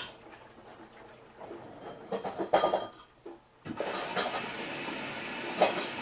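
Samsung EcoBubble front-loading washing machine tumbling a colour wash. The drum pauses, then sharp clinks of hard bits in the clothes striking the steel drum come about two to three seconds in, and the steady tumbling noise starts again just before four seconds in.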